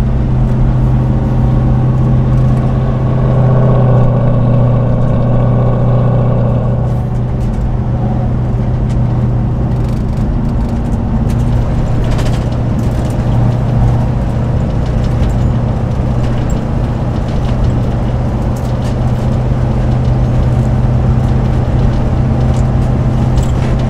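Turbocharged 5.3-litre LS V8 of a 1968 Pontiac GTO running at low road speed, a steady engine drone heard inside the cabin. The engine note swells slightly around three to seven seconds in, then settles back.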